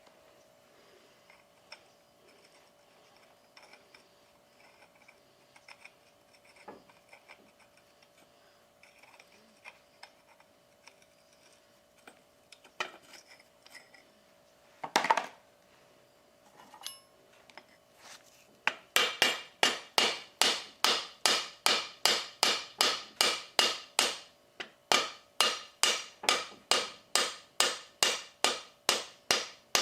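Rapid, evenly spaced hammer blows, about three a second, in two runs with a short break between them, preceded by a few scattered knocks and light clicks.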